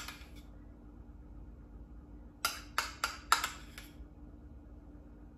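A small metal spoon clicks sharply against a ceramic cup or plate about five times in quick succession, a little past halfway through, over a faint steady hum.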